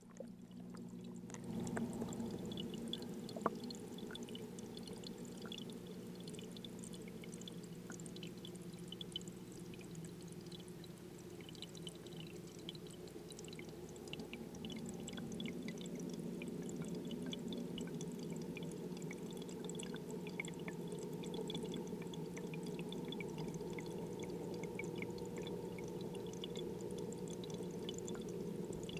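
Underwater sound inside a running home aquarium: a steady low hum of moving water and equipment under a continuous fizz of fine crackles. One sharp tap comes about three and a half seconds in.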